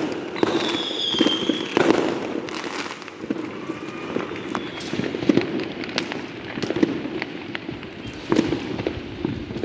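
Many fireworks and firecrackers going off together: a steady stream of bangs and crackling, with a brief high whistle about a second in.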